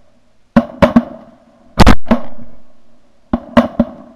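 A volley of shotgun shots from several duck hunters firing at passing ducks: about eight blasts in four seconds, in quick clusters. The loudest and longest, about two seconds in, is close by.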